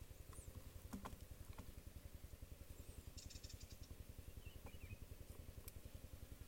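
Near silence over a faint, low, rapidly pulsing rumble of a distant engine, with a few faint bird chirps and small ticks.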